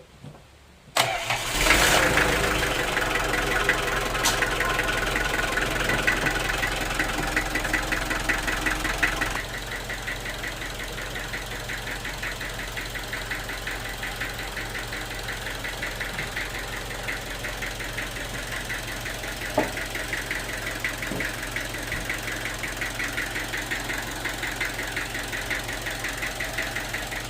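An engine starts about a second in and runs with a fast, even knocking beat. After about nine seconds it settles to a slightly quieter, steady run.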